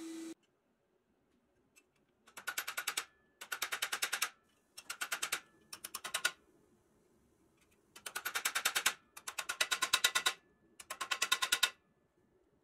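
Small hammer tapping rapidly on a pressed-steel toy truck part laid on a steel bench vise, in seven quick flurries of about ten light blows a second, with a faint high ring lingering between them.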